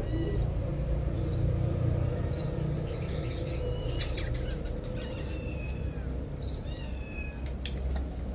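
Kittens mewing in thin, high, falling calls, with short sharp chirps recurring every second or two over a steady low rumble.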